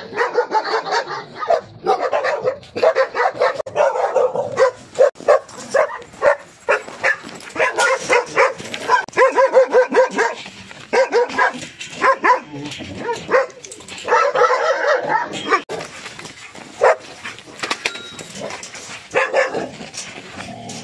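Several frightened dogs in a pen barking again and again, their barks overlapping in dense runs broken by a few short pauses.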